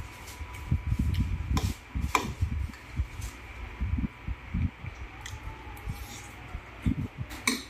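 Close-up eating sounds: irregular chewing and mouth noises, with utensils clicking against a bowl a few times, once near the end.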